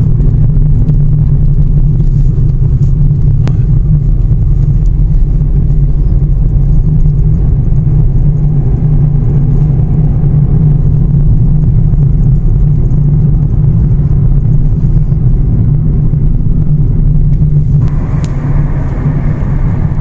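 Car interior noise while driving: a loud, steady low rumble of the engine and the tyres on the road. About two seconds before the end, a higher, brighter sound joins the rumble.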